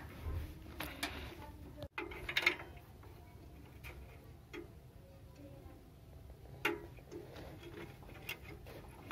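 Scattered, irregular light clicks and taps as hands handle the brass water valve and wiring of a reassembled gas water heater.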